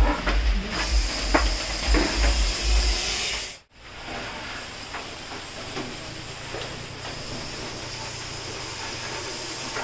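Russell's viper hissing steadily, a loud defensive hiss likened to a pressure-cooker whistle, which the snake makes when it is agitated. For the first few seconds the hiss is mixed with rumbling and knocks as the sheets are shifted; then the sound cuts abruptly and the hiss alone continues.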